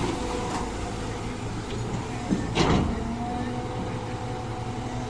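Diesel engine of heavy earthmoving machinery running steadily, with a sharp clank about halfway through.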